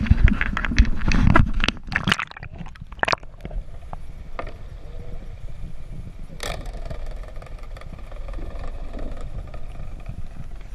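Dense knocks and splashing for about three seconds, then a steady muffled rush of water heard from under the surface, with one sharp knock about six seconds in.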